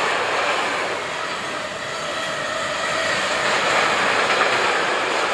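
Freight train of empty flat wagons rolling past, its wheels running on the rails in a steady loud rush with a faint high ringing, as the last wagons go by.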